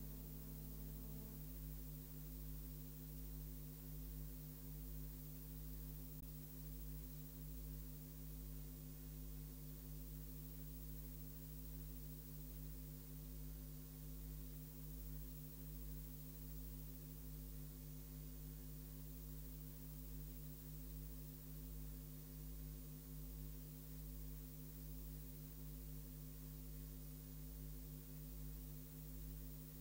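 Low, steady electrical hum with a faint hiss on the broadcast sound feed; no race-course sounds are heard.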